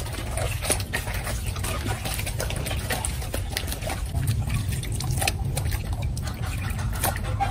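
Water sloshing and splashing in a steel bowl as pieces of beef skin are rubbed and rinsed by hand, with irregular wet slaps as the pieces are lifted and dropped.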